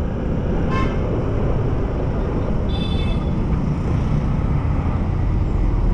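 Motor scooter running steadily on the move, its engine rumble mixed with wind on the microphone, with two brief high beeps about one second and three seconds in.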